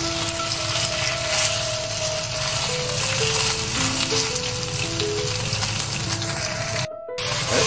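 Sliced pork loin sizzling steadily in a hot frying pan as pieces are laid in with chopsticks, with background music of held melody notes over it. The sound cuts out for a moment near the end.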